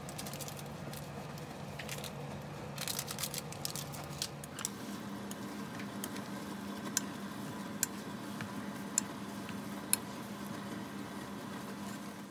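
Instant noodles being stirred and tossed with sauce in a nonstick wok, a utensil scraping and clicking against the pan, over a steady low hum. A run of crackling clicks comes about three seconds in, and a few sharper taps about a second apart follow in the second half.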